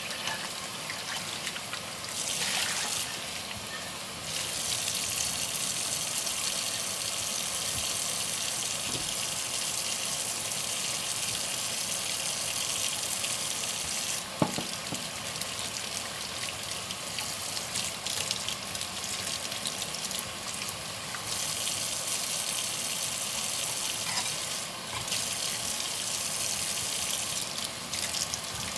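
Kitchen tap running into a sink while dishes are washed by hand: a steady rush of water that dips now and then, with one sharp knock about halfway through.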